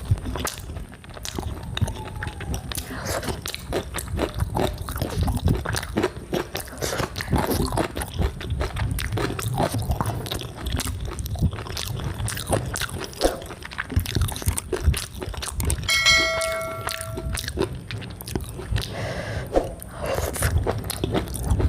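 Close-miked eating of cooked liver: continual biting, chewing and wet mouth smacks in an irregular run. A short steady tone sounds about sixteen seconds in.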